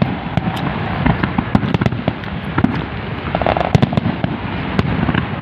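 Aerial fireworks display: a rapid, irregular run of shell bursts, several bangs a second, over continuous crackling.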